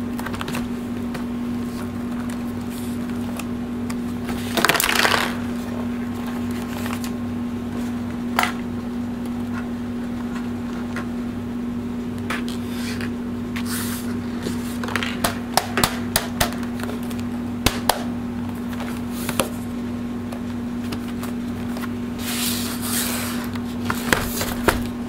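Plastic laptop case and cover panel being handled while the machine is taken apart: scattered clicks and taps, with a cluster of sharp clicks in the middle, and two short scraping, sliding noises, about five seconds in and near the end. A steady low hum sits underneath throughout.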